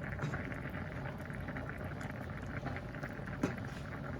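Fish broth with coconut milk bubbling and popping at a boil in a pot, with a steady crackle of small pops. One sharper click comes about three and a half seconds in.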